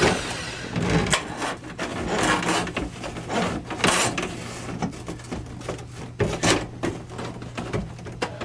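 Steel cable of a drill-powered drain snake rubbing, scraping and knocking as it is worked by hand into a PVC sink drain pipe, with scattered sharp clicks and a low steady hum underneath.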